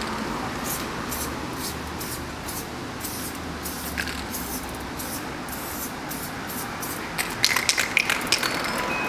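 Aerosol spray-paint can hissing in a string of short sprays as paint goes onto a wall. A cluster of sharp clicks comes near the end.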